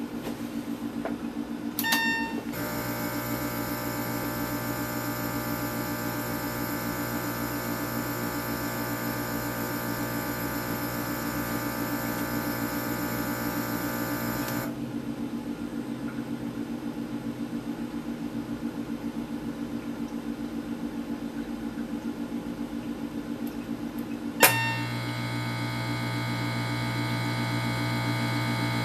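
Intoxilyzer 5000 breath-alcohol instrument running through its test sequence with a steady hum underneath. A short beep comes about two seconds in, then its internal pump runs steadily for about twelve seconds and stops. Near the end a sharp click and beep sound, and the pump starts again.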